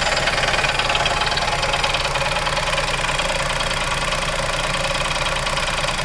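Chevrolet Onix Plus three-cylinder engine idling with a rapid, steady ticking clatter while the brake pedal is held down. The owner thinks something engages inside when the brake is pressed and keeps knocking, like a cover tapping against something.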